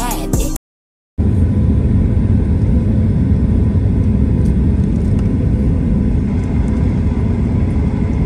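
Music cuts off abruptly just after the start, and after half a second of silence a steady, loud, low rumbling noise sets in and holds.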